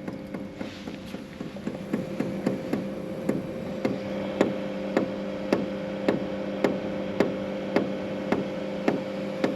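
BougeRV diesel air heater starting up: its fuel dosing pump ticks slowly and evenly, a little under twice a second, over the steady hum of the heater's fan. The clicks are irregular at first and settle into an even beat about halfway through, the pump running slowly as it primes.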